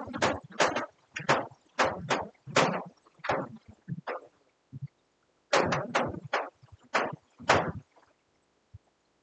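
Chalk writing on a blackboard: a quick run of sharp taps and short scratchy strokes, breaking off for about a second midway, then another run that stops shortly before the end.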